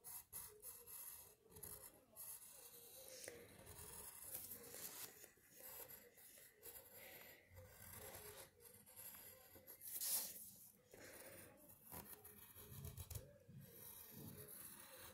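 Faint scratching of a red colored pencil drawn across paper in short irregular strokes while it traces an outline, with one louder scrape about ten seconds in.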